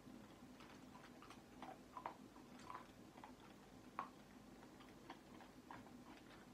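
Near silence in a quiet room, broken by faint, scattered small clicks and ticks, about a dozen at uneven intervals.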